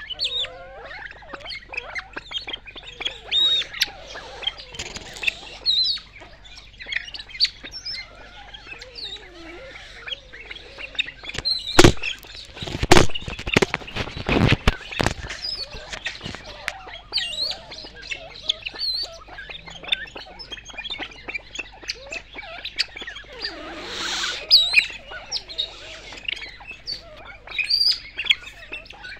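Golden pheasants giving many short, high-pitched chirps and squeaks. A cluster of sharp knocks comes about halfway through.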